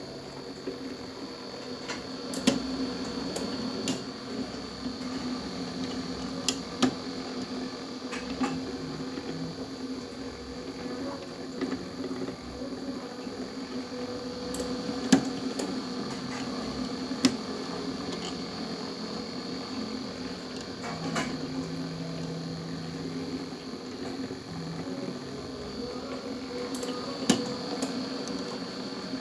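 Toroidal transformer winding machine running, its shuttle ring winding enamelled copper wire onto the primary of a large toroid core: a steady motor hum with a faint high whine, broken by a sharp click every few seconds.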